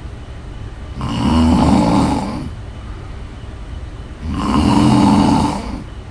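A woman snoring: two loud snores about three seconds apart, each lasting about a second and a half.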